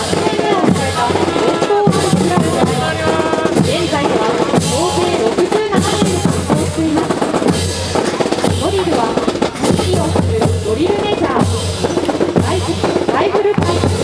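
Music with a drum-kit beat (bass drum and snare) under a melody, playing without a break.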